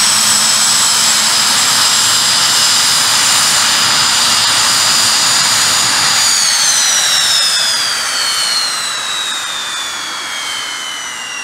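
Soko G-2 Galeb's Rolls-Royce Viper turbojet whining steadily at idle, then, about six seconds in, the whine falls steadily in pitch and grows quieter as the engine winds down after shutdown.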